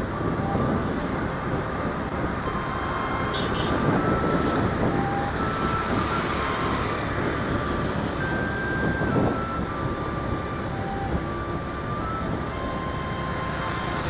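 Steady wind and road noise of riding a motorbike through city traffic, with cars and scooters around. A faint melody of held notes runs over it.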